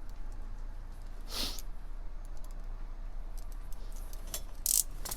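Small handling clicks from wire cutters and a wiring connector being worked by hand, scattered and faint, with a brief swish about a second and a half in, over a steady low hum.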